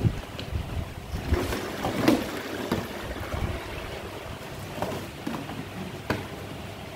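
A piston filling machine runs with a steady low hum as engine oil is dispensed into 1-litre plastic bottles, with a rushing, liquid-like noise through the first half. Sharp knocks of plastic bottles being handled come near the start and several times later, the clearest about six seconds in.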